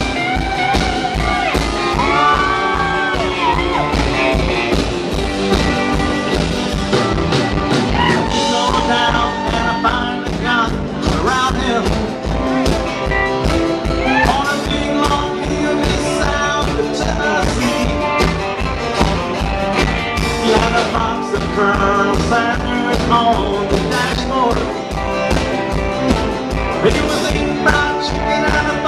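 Live rockabilly band playing: strummed acoustic guitar and electric guitar over a steady drum beat, with a voice singing at times.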